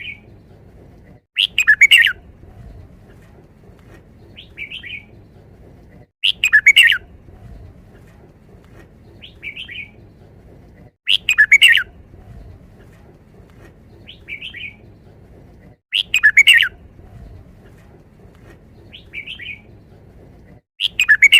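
Red-whiskered bulbul singing the same short, loud song phrase five times, about every five seconds, with a softer short note between phrases. The phrase is its five-syllable wild-type song.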